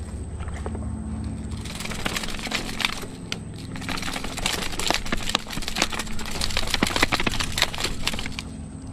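Rapid, irregular clicking and rattling over a low steady hum.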